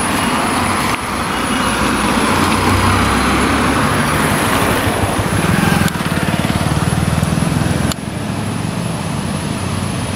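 Motor vehicle engine running on a steep hill road, its low pitch shifting, with the sound changing abruptly about a second in, near six seconds and near eight seconds.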